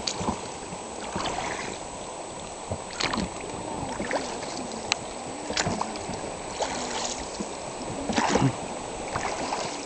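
River water rushing and lapping against a raft drifting down a fast glacial river. A few short, sharp sounds rise above the wash, the strongest about three, five and eight seconds in.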